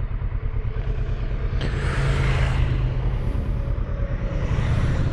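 Kawasaki Versys 650 parallel-twin engine running steadily at road speed, with rushing wind noise that swells briefly about two seconds in.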